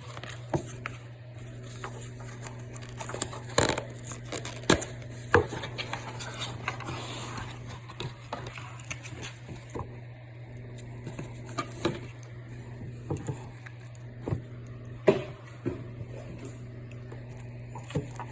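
A metal bangle and its box being handled: scattered light clicks, taps and metallic clinks, several sharper than the rest, over a steady low hum.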